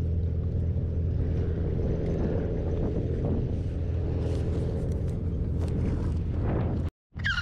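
Strong wind buffeting the microphone: a steady low rumble, with faint rustling and a short scrape near the end. The sound drops out for a moment just before the end.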